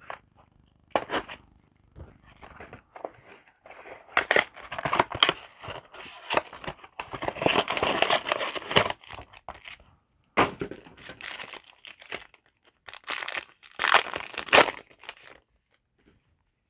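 Foil booster pack wrapper being crinkled and torn open, with the cards inside handled, in irregular rustling spells with short pauses.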